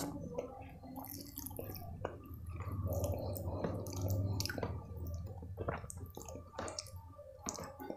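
Wet squishing, with many short sticky clicks, as fingers mix soft khichdi rice into runny kadhi in a plastic tray. A low hum swells under it in the middle.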